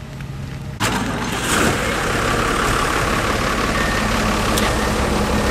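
Heavy diesel engine of construction machinery (excavator or tipper truck) running steadily, suddenly much louder about a second in.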